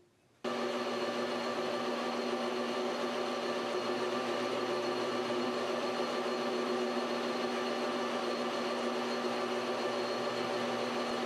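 Metal lathe running with a steady motor whine and hum, starting suddenly about half a second in, while its cutting tool faces the end of a turned copper slug held in the collet chuck.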